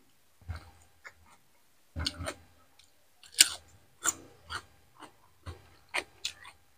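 Close-miked crunchy chewing of raw cucumber, a wet crunch every half second or so, with one louder crunch about three and a half seconds in.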